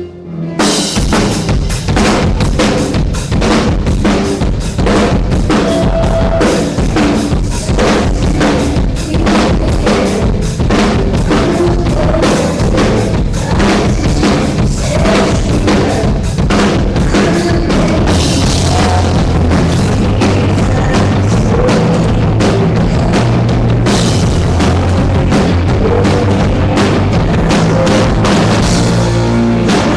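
Live rock band playing loudly, the drum kit's bass drum and snare most prominent. The full band comes in abruptly about half a second in.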